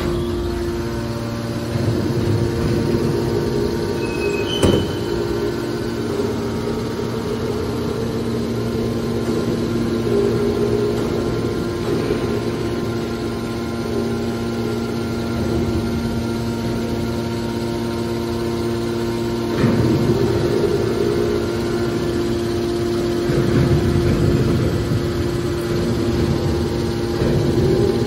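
Electric motor and hydraulic pump of a scrap metal baler running with a steady hum. There is a sharp click about five seconds in, and the sound swells louder briefly around two-thirds of the way through and again shortly after.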